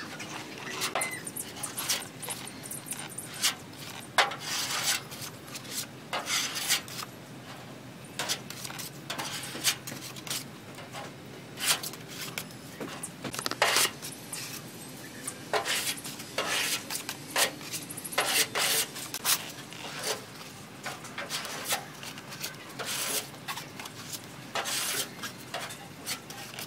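Body filler being spread onto a car body panel with a flat spreader: a run of short, irregular scraping strokes, with occasional clicks of the spreader against the panel and the mixing board.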